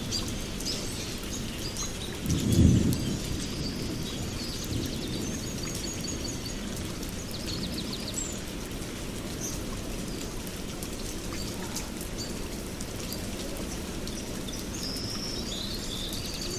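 Rain and thunderstorm ambience: a steady low rumble with a roll of thunder about two and a half seconds in, and birds chirping.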